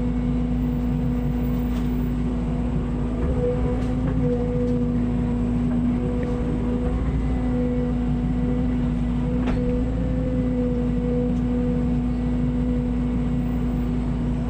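Mini excavator's diesel engine running steadily with a constant hum over a low rumble.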